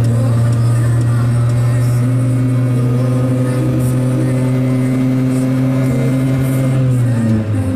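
Piaggio Ape 50's small two-stroke single-cylinder engine running steadily under way, its pitch falling near the end as the throttle eases.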